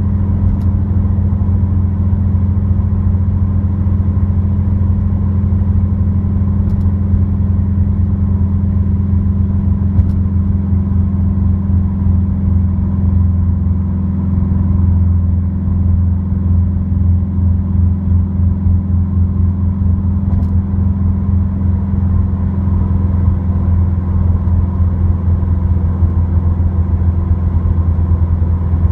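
Subaru WRX's flat-four engine through an Invidia dual N1 exhaust at a steady freeway cruise, heard inside the cabin as a constant low droning hum that holds the same pitch throughout.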